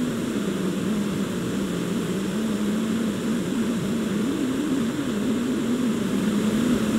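Backpacking gas stove burning under a lidded pot of water: a steady roar with a low hum that wavers in pitch.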